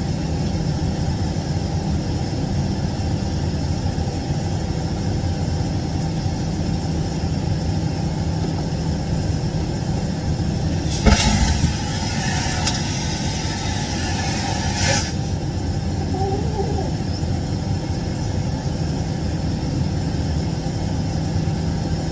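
Steady airliner cabin noise, a low rumble of engines and airflow heard from inside an aircraft lavatory. About halfway through, a knock is followed by a loud hiss lasting about four seconds.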